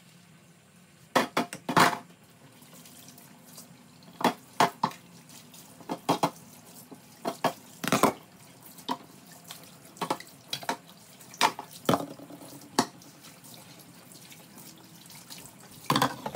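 Tap water running into a kitchen sink while cooking-pot lids are washed, with repeated sharp clanks and clatters of the lids knocking against each other and the sink.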